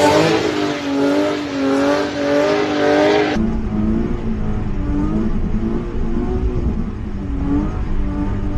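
Car engine revving up and down as the car slides on a wet road, with a hiss of tyres and spray. About three seconds in it changes abruptly to an engine heard from inside the cabin, running and revving with a deeper rumble.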